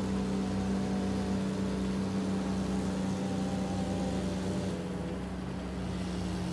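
Steady engine hum and road noise inside a moving car's cabin as it drives at moderate speed.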